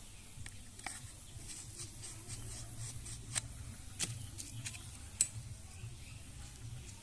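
Scattered light clicks and taps as a plastic bottle and small hand tools are handled and set down on a plastic sheet, over a low steady rumble.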